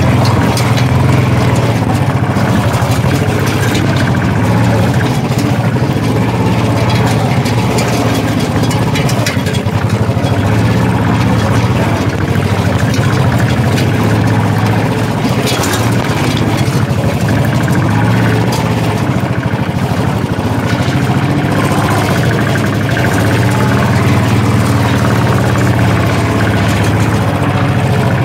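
Motorcycle engine running steadily under load on a rough off-road climb, easing off briefly a couple of times.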